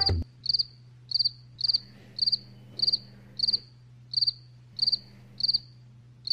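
Cricket chirping, the stock sound effect for an awkward silence: short trilled chirps about every 0.6 s, each a quick run of a few pulses, over a faint steady low hum.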